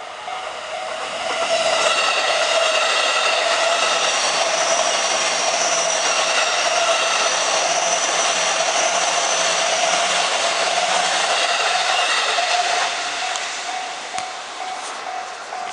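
Electric JR commuter train passing over a level crossing: a steady rush of wheel and running noise builds about a second and a half in and fades away after about thirteen seconds. The crossing's warning bell keeps ringing in a rapid, even rhythm underneath.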